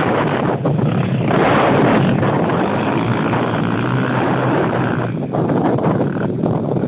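Dirt bike engine running hard under throttle as the bike pulls away, its loudness dipping briefly a couple of times near the end.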